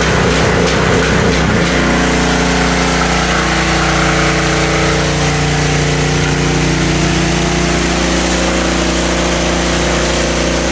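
Gas-engine pressure washer running steadily with its water jet spraying against a vehicle's body panels. The engine note changes and settles into a steady hum about two seconds in.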